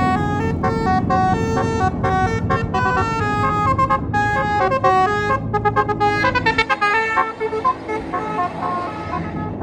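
Tour bus's Basuri 'telolet' multi-tone horn starting suddenly and playing a quick melody of short stepped notes over the rumble of the bus's engine. About six seconds in the notes break into rapid short toots, then fade away near the end while the engine rumble goes on.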